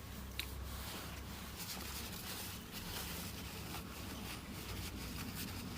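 Faint small clicks and light rubbing from the parts of an opened power-tool trigger switch being handled and wiped clean, over a low steady hum.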